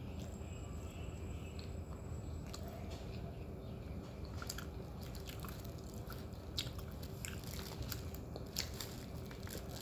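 A person chewing roti prata, with many small scattered clicks and crunches from the mouth. Near the end, hands tearing the flaky bread on its paper wrapper add light crinkles.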